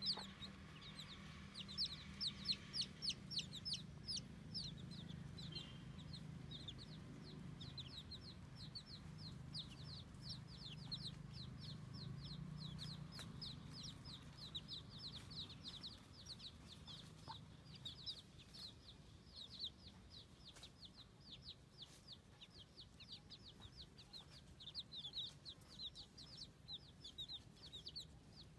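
Baby chicks peeping continuously: many short, high, downward-sliding cheeps, several a second and overlapping, over a faint steady low hum.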